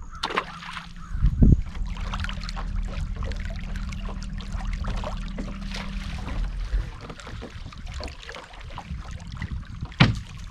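Water splashing and trickling beside a fishing boat, with a strong thump about a second and a half in and a sharp knock near the end. A steady low hum runs under it and stops about two-thirds of the way through.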